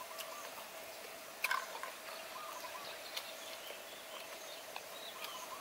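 Quiet chewing of fried meatballs close to a clip-on microphone, with small wet clicks and a louder click about a second and a half in. Birds chirp faintly in the background over a steady faint tone.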